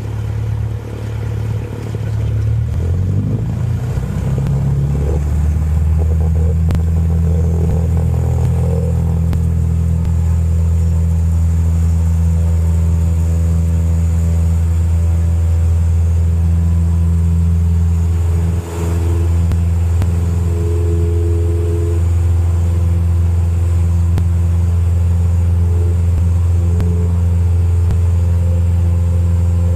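Single-engine piston training aircraft's engine throttled up to takeoff power: it rises in pitch and level over the first few seconds, then runs steady at full power, with one brief dip about two-thirds of the way through.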